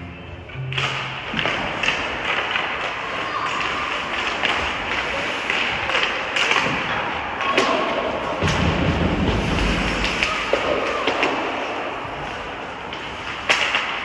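Ice hockey play: skates scraping the ice, sticks clacking and the puck being struck, with players' shouts. The scraping and clatter pick up about a second in.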